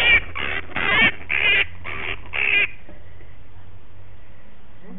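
Grey-headed flying-fox screaming: a quick run of about six wavering calls over the first two and a half seconds, then they stop.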